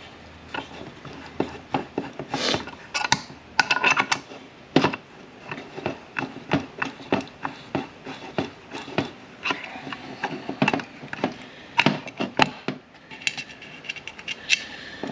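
Irregular clicks, taps and scrapes of tools on the small metal parts of a manual transmission shift tower as a stuck part is worked loose.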